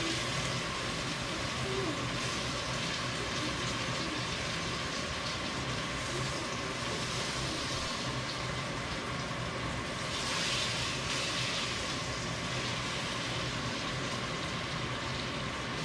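Steady sizzling of food frying in oil in a skillet on the stove, swelling a little about ten seconds in.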